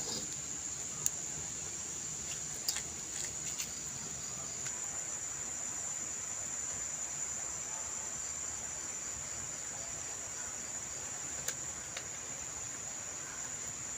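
A steady, high-pitched insect chorus, like crickets, carrying on without a break, with a few short sharp clicks scattered through it.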